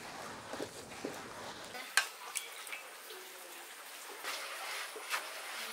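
Hand-turned stone grinder, a stone pestle rolled round a stone mortar over soaked rice, grated coconut and fried spices: faint gritty scraping with scattered sharp clicks, the sharpest about two seconds in.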